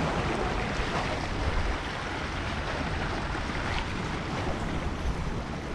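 Sea waves washing against breakwater rocks in a steady rush, with wind buffeting the microphone.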